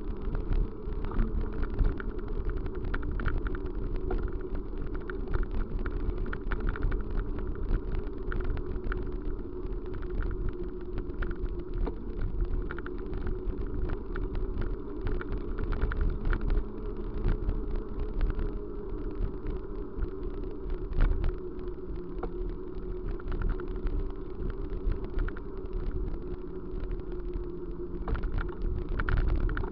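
Steady running noise of a vehicle in motion: a low rumble with a faint hum and many small clicks and knocks throughout.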